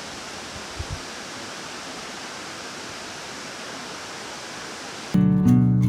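Steady rush of a waterfall, with two soft low thumps about a second in. Near the end, acoustic guitar music cuts in suddenly and is louder than the water.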